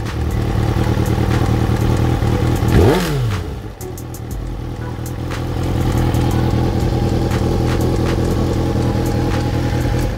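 Kawasaki ZXR750 inline-four engine running, blipped once to a quick rev about three seconds in that falls straight back. A light knocking tick runs through it, whose cause the owner has not yet found.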